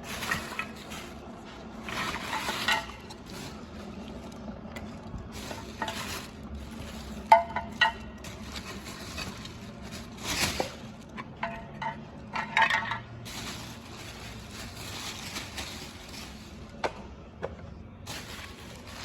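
Vacuum cleaner attachments being handled: irregular clatter, rustling and clicks as parts are picked up and put down, with a few sharper knocks of hard pieces.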